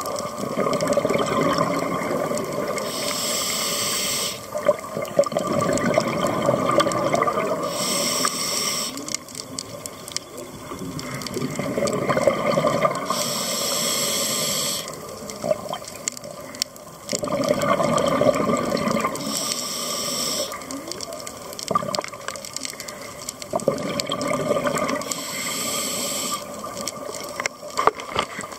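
Scuba breathing heard underwater: a hissing inhale through the regulator about every five to six seconds, alternating with the longer burbling rush of exhaled bubbles.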